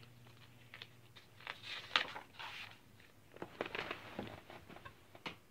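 Paper rustling and clicks from a picture book being handled and moved about, in short irregular bursts with a sharp click near the end.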